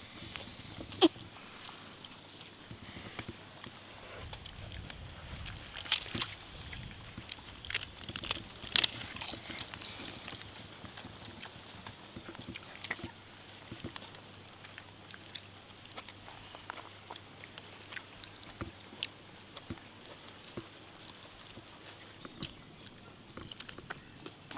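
Eating by hand off banana leaves: soft rustling of the leaves and rice, with scattered sharp crunches and clicks, the loudest about a second in and again around six and nine seconds in.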